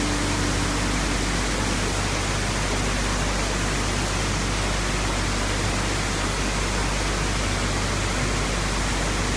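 Steady rushing noise of a tall waterfall's falling water, even and unbroken throughout.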